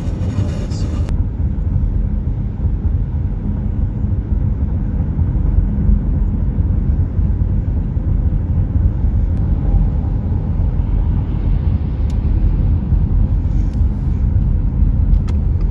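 Road and engine noise inside a moving car's cabin: a steady low rumble, with a few faint clicks near the end.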